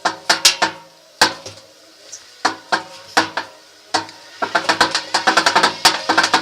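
Washing machine drum turned by hand, giving sharp knocks that ring briefly, then a fast clattering rattle from about four and a half seconds in: the sign of worn drum bearings.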